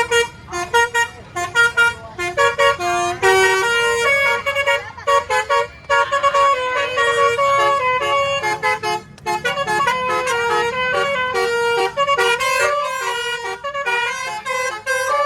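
Basuri horn, a set of multi-trumpet vehicle horns, playing a tune in quick stepped notes, some short and some held longer.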